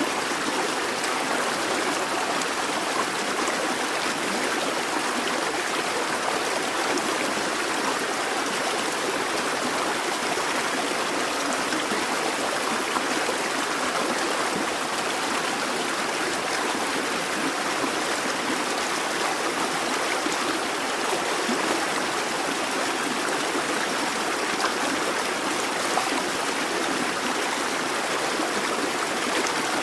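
Busy babbling brook: water splashing and trickling over rocks in an even, unbroken rush.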